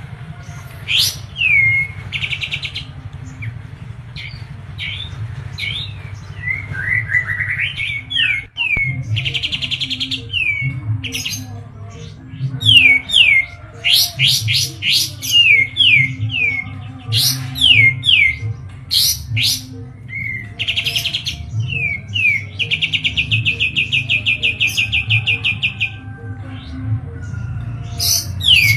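Kapas tembak (a bulbul) singing hard: a quick run of sharp, falling whistled notes broken by fast rattling trills, the longest near the end. A steady low hum runs underneath.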